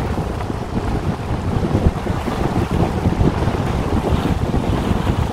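Strong wind buffeting the microphone, a loud rough rumble that swells and dips in gusts.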